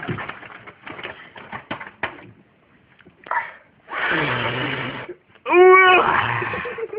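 A man's wordless vocal noises: loud, rasping, breathy exhalations, then a loud strained voiced cry about five and a half seconds in.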